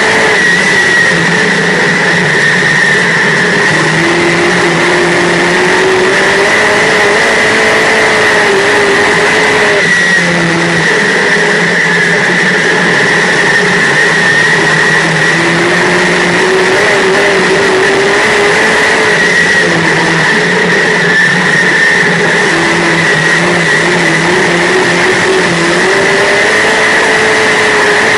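Dirt modified race car's V8 engine heard from inside the cockpit at racing speed. Its pitch drops as the driver lifts for each turn and climbs again on every straight, about twice a lap, over a loud, constant rush.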